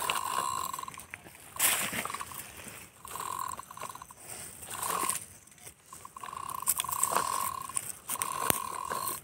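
Plastic toy truck's wheels rolling, rattling and crunching over stony dry soil as it is dragged along, with a few sharp clicks and a steady high tone that comes and goes several times.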